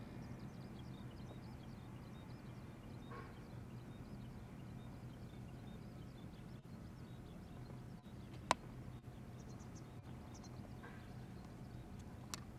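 Quiet outdoor ambience: a steady low hum with faint high chirps, and one sharp click about two-thirds of the way through.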